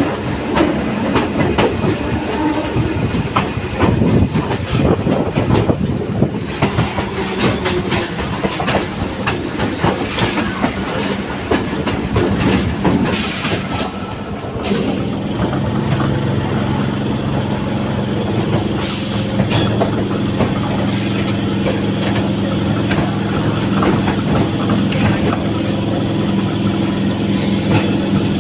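Indian Railways EMU (electric multiple unit) train running at speed, wheels clattering over the rail joints. About halfway through, a steady low hum comes in under the rumble.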